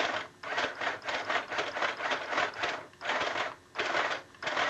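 Small portable sewing machine running in a fast, even stitching rhythm. It stops and starts again a few times, with short pauses about three seconds in, again a little later, and near the end.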